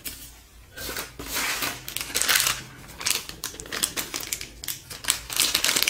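A small clear plastic accessory bag and the packing sheet crinkling and rustling in the hands, in irregular crackling bursts. It starts about a second in and is loudest around two seconds in and near the end.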